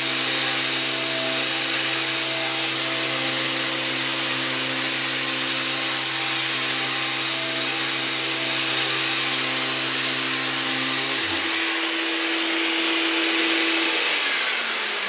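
Mirka CEROS electric random orbital sander running with 80-grit Abranet mesh on a dovetailed drawer corner, together with the rush of a dust-extraction vacuum drawing through the pad. The low hum drops out about eleven seconds in. The sander's tone fades near the end while the vacuum keeps going.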